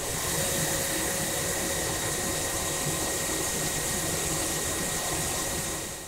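Harvested paddy rice pouring through a gridded intake grate into a pit, a steady loud hiss of falling grain over the hum of mill machinery. It cuts off suddenly at the end.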